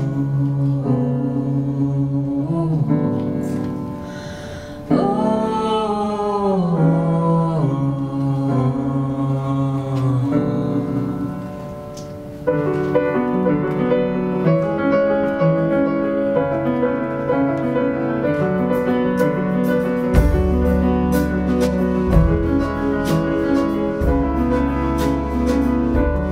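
A man singing a slow song to his own piano accompaniment. About halfway it cuts suddenly to a fuller band arrangement with singing, drums and a deep bass line.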